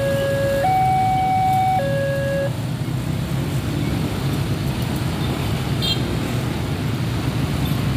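Railway level-crossing warning alarm from the post's loudspeaker, alternating between a low and a high tone about a second each, which cuts off about two and a half seconds in as the barrier arms go up. After it, the steady rumble of motorcycle traffic starting across the crossing.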